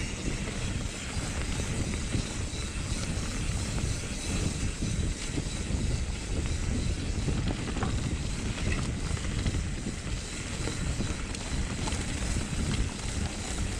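Wind rushing and buffeting over the microphone of a moving rider: a steady, fluttering rumble with a hiss over it, with no engine tone in it.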